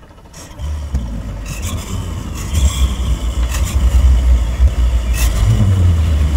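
Quad Mercury Racing 500R supercharged V8 outboards on an MTI V50 starting up about half a second in. They settle into a deep, rumbling idle that grows louder, with a few sharp clicks on top.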